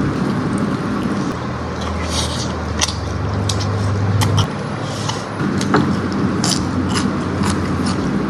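A person eating: bites and chewing with scattered short crisp clicks and crunches, over a steady low hum in the background.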